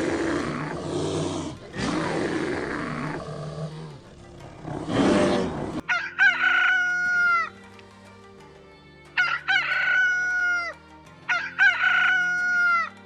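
A deep, rough animal call for about six seconds, cut off sharply, then a rooster crowing three times, each crow falling in pitch at its end, about two and a half seconds apart. Soft background music runs underneath.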